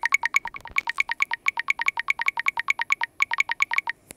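Rapid typing on a software keyboard skin, each key press playing the same short electronic pitched tick, about nine a second, stopping briefly near the end.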